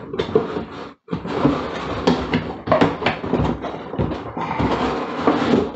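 Large cardboard carton being closed by hand: the lid and flaps scrape, rub and flap against the box in a busy, irregular stream of rustling and knocks, with a brief break in the sound about a second in.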